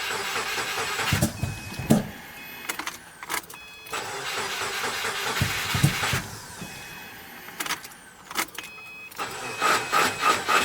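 Subaru WRX flat-four engine being cranked by its starter without firing, in a few separate tries, the last a slow rhythmic churn of about four beats a second. The sluggish cranking is what the owner takes for a dying starter or battery.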